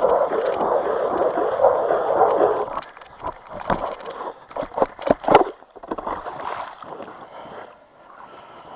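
Ice auger grinding steadily through ice, stopping abruptly about three seconds in, followed by a series of irregular scraping knocks as the hole is worked and cleared.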